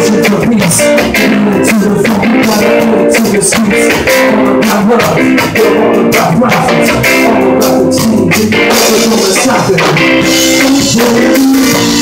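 Live band playing loud amplified music: electric guitar, bass guitar and a Pearl drum kit, with a man singing into the microphone.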